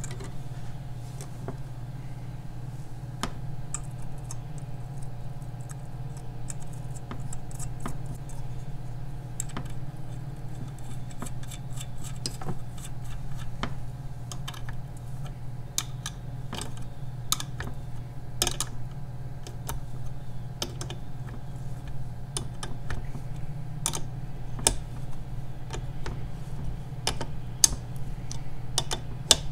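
Nuts and washers clicking and tapping irregularly as they are fitted by hand onto the studs of an outboard motor's water pump housing, over a steady low hum.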